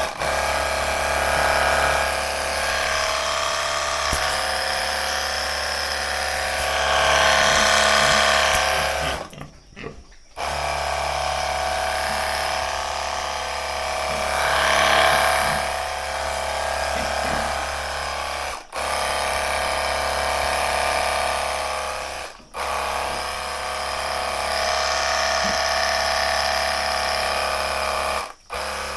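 Electric pressure washer running with a steady motor hum, its water spray hissing louder at times. The sound cuts out briefly several times.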